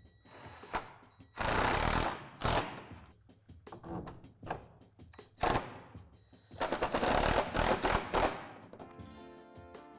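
RIDGID cordless drill driving screws, in two long runs about a second and a half in and about seven seconds in, with short bursts of the trigger between. Guitar background music comes up near the end.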